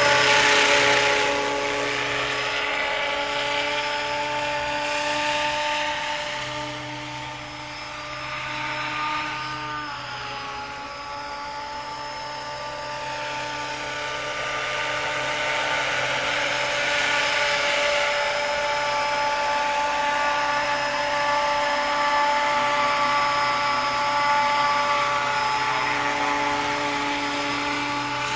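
A 500-size radio-controlled MBB Bo 105 scale helicopter with a four-blade rotor flying, giving a steady mechanical whine with rotor noise. It is loudest as it passes close about a second in, quieter while it is farther off in the middle, then louder again.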